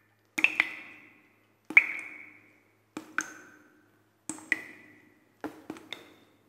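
Water dripping into a puddle: separate sharp plinks with short ringing tails, about one a second, several in quick pairs.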